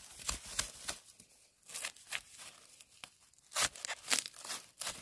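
A blade is driven repeatedly into soil, dry bamboo leaf litter and the base of a young bamboo shoot to dig it out: about ten sharp crunching strikes in uneven bunches.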